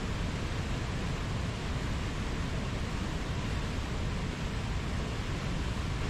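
Steady rushing of whitewater rapids in a fast mountain river, an even noise that holds without a break.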